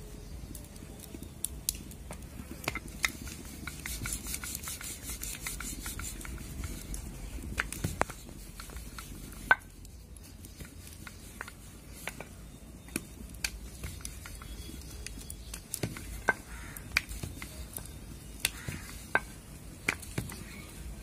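Wooden rolling pin and hands working on a marble rolling board while rice-flour puris are rolled out: irregular sharp clicks and taps, with a quick run of light scratchy ticks about four seconds in as flour is spread over the stone.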